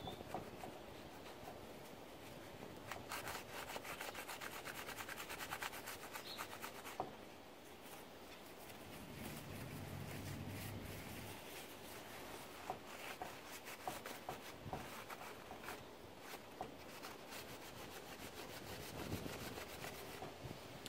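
Paper towel wet with lacquer thinner rubbing over the metal pinwheels of a Marchant XL mechanical calculator, faint scrubbing strokes with a quicker run of them a few seconds in, cleaning grime off the wheels.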